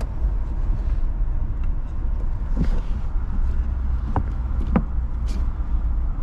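Car engine idling: a steady low rumble, with a few light knocks or clicks partway through.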